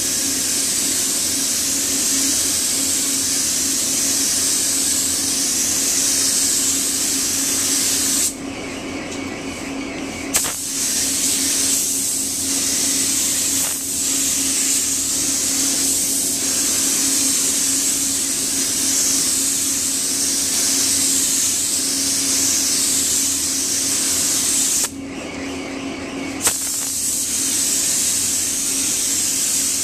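Compressed-air gravity-feed spray gun hissing steadily as it sprays paint, broken twice by pauses of a second or two, each ending in a short pop as the spray starts again. A steady low hum runs underneath.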